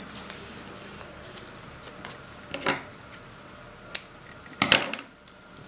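Sewing scissors snipping off a thread end close to the fabric, one short, sharp snip near the end, after a few faint clicks and rustles of handling.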